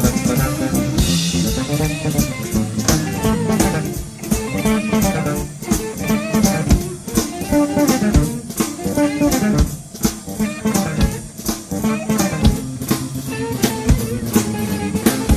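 Jazz-fusion jam: electric bass playing fast, busy melodic lines over a drum kit.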